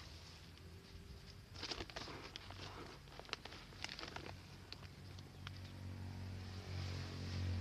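Granular organic fertilizer poured and scattered by hand into a box, the granules pattering and ticking against it in a quick irregular run through the middle. A low steady hum grows louder near the end.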